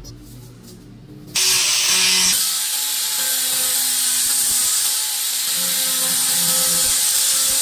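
Handheld angle grinder with a sanding disc, switched on and grinding the edge of a clear sheet. It starts abruptly about a second and a half in and runs steadily as a loud, hissing whine.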